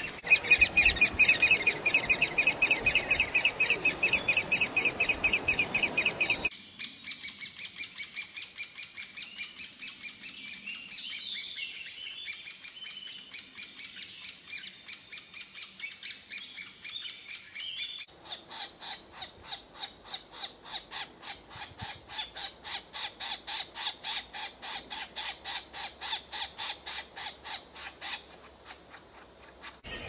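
Great spotted woodpecker chicks begging, hungry and calling for food: high, fast, insistent calls repeated several times a second without pause. The calling changes abruptly twice, as separate recordings are joined.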